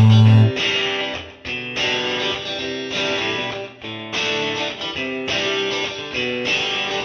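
Background music led by guitar, a run of separate pitched notes.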